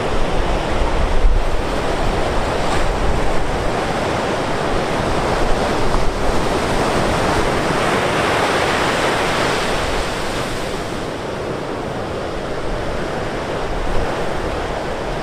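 Ocean surf breaking and washing up a sand beach, a steady rush that swells louder around the middle, with wind rumbling on the microphone near the start.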